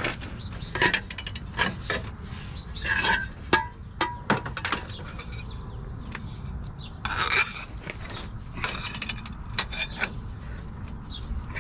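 A socket and long breaker bar being fitted onto and worked against a rear shock absorber's lower mounting bolt to tighten it: scattered metal clicks, clinks and scraping, with a short ringing clink about four seconds in.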